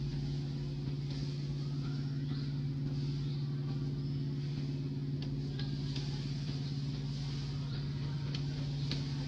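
A steady low drone from a running motor, like an idling engine, holding one pitch throughout. Faint high chirps recur above it, with a few sharp clicks in the second half.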